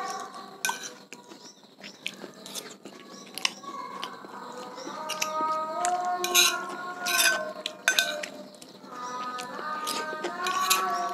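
A metal spoon clinking and scraping on a ceramic plate, with chewing. Faint sung praises by children from a mosque carry in the background, starting about four seconds in and again near the end.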